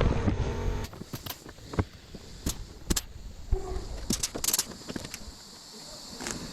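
Music ends under a second in. Then a pneumatic pop-rivet gun (air riveter) sets rivets, with a scatter of sharp snaps and clicks and one short hiss of air.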